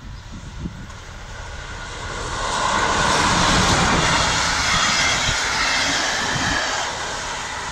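MÁV M41 diesel-hydraulic locomotive hauling passenger coaches passes close by. Its engine swells from about two seconds in and stays loud with a steady whine on top, with wind buffeting the microphone at the start and end.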